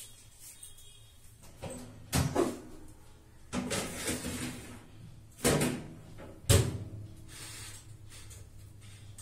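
Oven door opened and shut as a baking tray goes in: four knocks and clatters, the loudest about six and a half seconds in, over a low steady hum.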